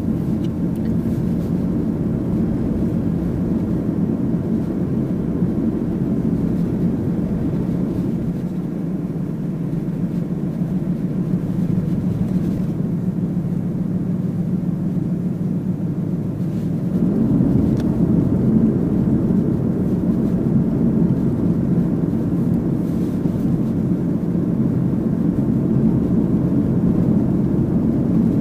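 Mitsubishi Pajero Mini kei SUV on the move: steady engine and tyre noise heard from inside the cabin, growing somewhat louder about two-thirds of the way through.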